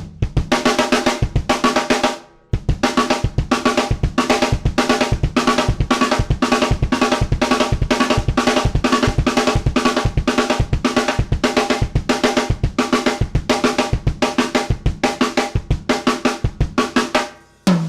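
Drum kit played in a steady, busy groove of snare and bass drum hits with ringing drum tones. There is a brief break about two seconds in, and the playing stops just before the end.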